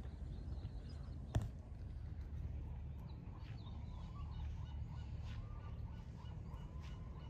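Low steady outdoor rumble on the microphone, with one sharp click about a second and a half in and faint bird calls in the background.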